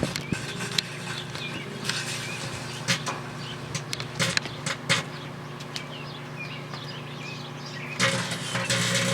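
Microwave oven running with a steady transformer hum, with irregular sharp snaps and crackles from the old cable modem inside as it arcs and starts to burn. The crackling grows louder and denser about eight seconds in.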